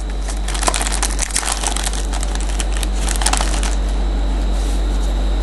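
Trading card pack and cards being handled: crinkling and rustling that stops about two-thirds of the way through, over a steady low hum.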